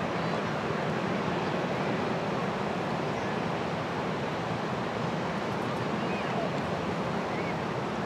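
Steady wash of ocean surf on the beach, with faint distant voices of beachgoers calling out now and then.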